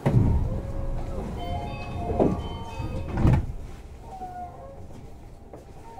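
Tama Toshi Monorail 1000-series train's sliding doors closing: a sudden heavy thud, then a short chime of steady tones and two more knocks as the doors shut.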